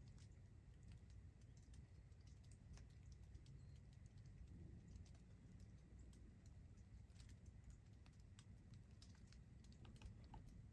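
Near silence: faint, irregular small clicks and ticks over a low, steady rumble.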